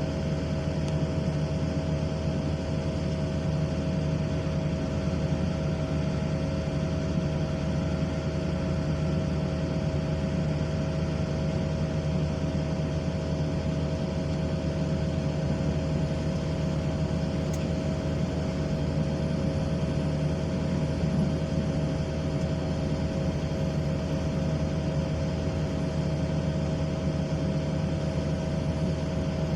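Excavator's diesel engine running steadily at a constant pitch, with a steady hum and a higher whine over it.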